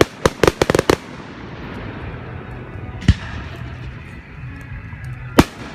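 Fireworks exploding overhead. A rapid string of sharp bangs comes in the first second, then single loud bangs about three seconds in and again near the end.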